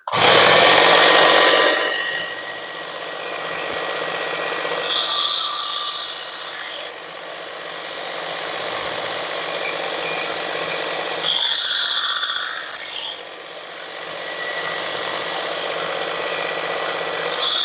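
Work Sharp electric belt sharpener running with a leather stropping belt loaded with green compound, as a knife blade is stropped on it with very light pressure. The motor runs steadily, with louder hissing passes of about two seconds each, about five seconds in, about eleven seconds in, and at the very end.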